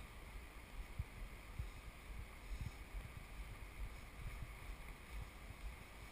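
Faint outdoor wind noise on the microphone, low uneven rumbles and small thumps, over a steady soft rush of river water.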